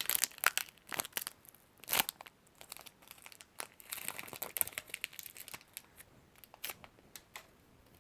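A Pokémon booster pack's foil wrapper being torn open and crinkled by hand: a run of sharp crackles and rips, busiest at the start and again midway, thinning to a few scattered crinkles near the end.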